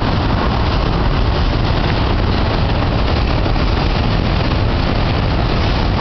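Subway train crossing a steel bridge close by, running as a loud, steady rumble of wheels on the track with no let-up.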